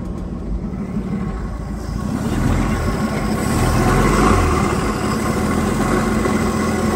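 1954 Dodge truck's flathead inline-six engine running just after catching on the start. It picks up speed and gets louder a couple of seconds in, then holds steady.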